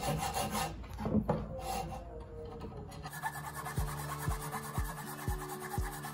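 Hacksaw cutting through a metal outboard-motor anode with rough back-and-forth strokes. About three seconds in, upbeat acoustic background music comes in over the sawing.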